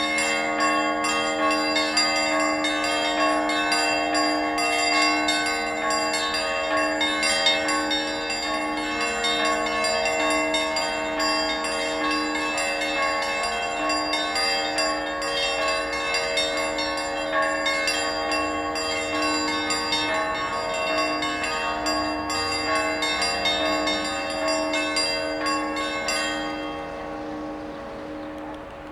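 Church bells ringing in quick, overlapping strikes, a dense peal of several bells. The strikes stop near the end and the ringing fades away.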